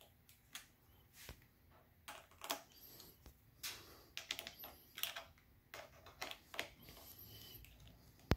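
Scattered light clicks and metal clinks from a folding T27 Torx key set being handled, one key swung out and fitted into a screw head on the scooter's stem. The sharpest click comes near the end.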